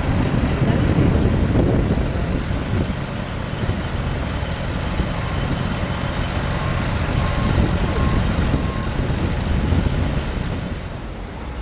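Diesel engine of a backhoe loader running under load as it works, a steady low rumble with a dump truck's engine running alongside. A faint reversing alarm beeps evenly about halfway through.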